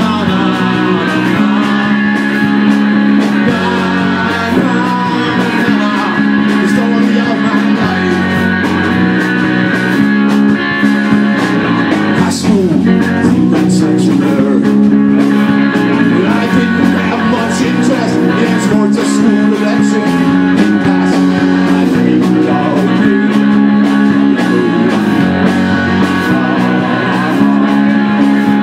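Live rock trio of electric bass, electric guitar and drum kit playing a song, loud and steady throughout.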